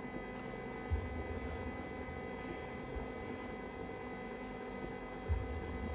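Hella KL70 rotating beacon running on test: the electric motor and gearing that turn the reflector give a steady hum made of several fixed tones. A few soft low bumps sound through it, the clearest about a second in and again near the end.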